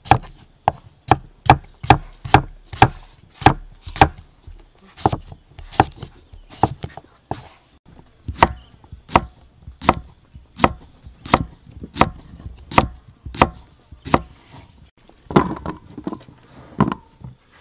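A cleaver slicing cucumbers on a thick round wooden chopping board: a steady run of sharp knocks of the blade against the wood, about two a second. The chopping stops near the end.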